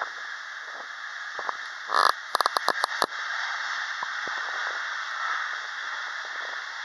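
Steady, distant rushing noise of an Airbus A330-202 airliner's jet engines during its landing rollout. A quick run of about eight sharp clicks comes about two to three seconds in.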